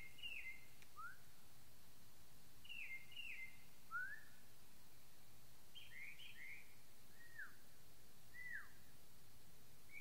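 Faint, short, clear whistles exchanged at night: night birds whistling and a person whistling back to them. The notes come in pairs that drop in pitch, single notes that rise, and later single falling notes, with pauses between.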